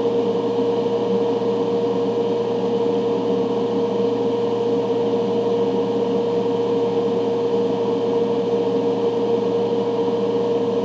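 Ventilation fan running steadily: an even hum with a strong, steady mid-pitched tone and a lower drone, unchanging throughout.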